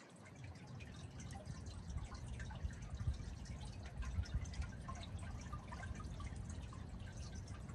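Water dripping and splashing at a pond outlet in the rain: scattered small drips and splashes over a steady low rumble, swelling a little around the middle.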